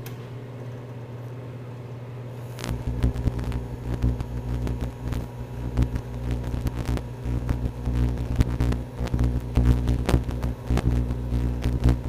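Microwave oven running with a steady low hum. A few seconds in, a much louder, rough buzzing with irregular sharp crackles sets in as the burning toothpick under the glass jar is turned into plasma.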